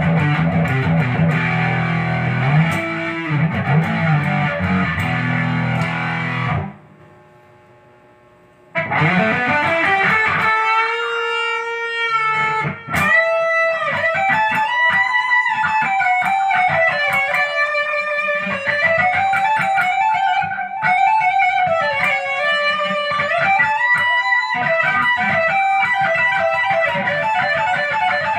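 Fernandes HSS electric guitar with a Floyd Rose tremolo, played through distortion. A low, dense riff stops suddenly about seven seconds in, followed by a brief quiet ring. Then come rising and falling pitch swoops from the tremolo bar, and a sustained lead melody with wide bends and vibrato.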